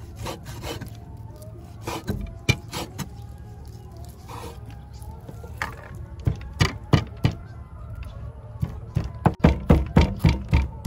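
Knife chopping pork on a wooden cutting board: a few separate knocks at first, then from about nine seconds in a steady run of hard chops, about three a second.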